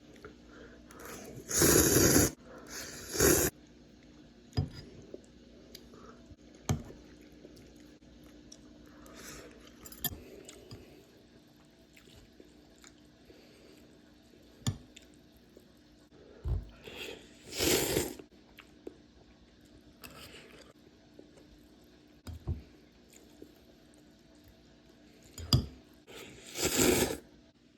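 Someone eating a bowl of ramen: short clicks and scrapes of utensils against the bowl, and four louder noisy bursts of under a second each, two close together early on and the others well spaced out.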